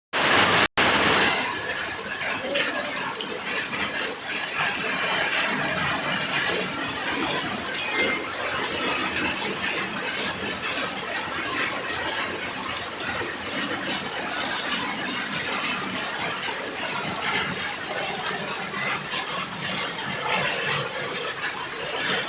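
Heavy rain falling steadily, with a continuous rush of water overflowing onto the street.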